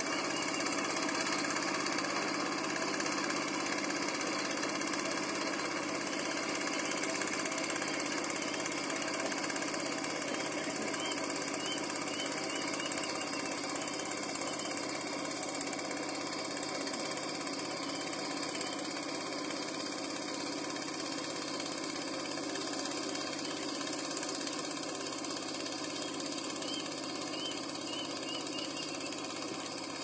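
A small boat's engine chugging steadily, slowly growing fainter as the boat moves off across the water.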